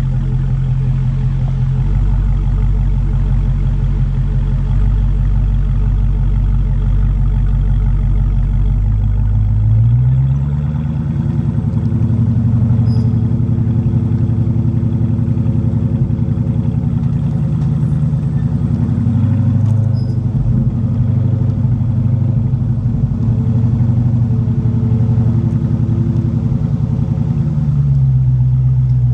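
Dodge Hellcat's supercharged 6.2-litre Hemi V8 running, heard through its exhaust. It idles steadily, then about a third of the way in the engine speed rises smoothly and holds at a higher steady level, settling back down near the end.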